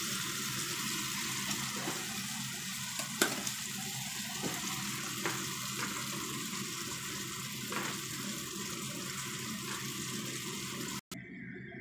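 Hot oil sizzling steadily under a vegetable fritter frying in a nonstick pot, with a few sharp pops of spitting oil, the loudest about three seconds in. The sizzle breaks off abruptly near the end.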